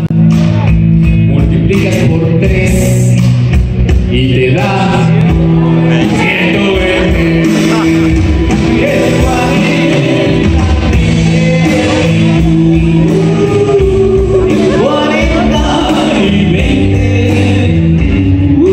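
Live band playing through the PA: a man singing into a microphone over electric guitar and a drum kit.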